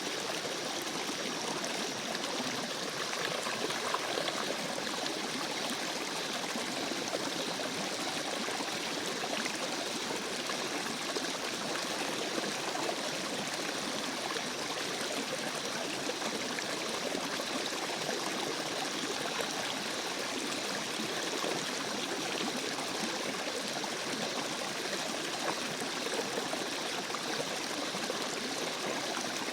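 A small stream flowing steadily, water trickling and splashing over stones with no breaks or changes.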